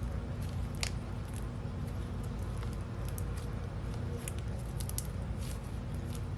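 Whipped slime mixed with sprinkles being squished and pressed by hand, giving scattered small clicks and crackles over a steady low hum.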